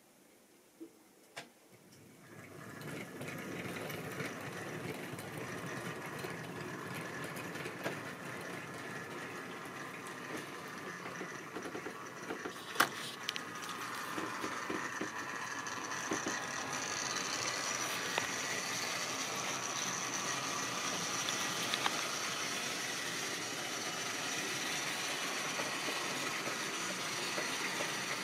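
Tri-ang OO-gauge model train running on the layout: the electric motor whirs and the wheels rumble on the track. It starts about two seconds in, grows louder with a high whine from about halfway, and has occasional sharp clicks from wheels crossing rail joints and points.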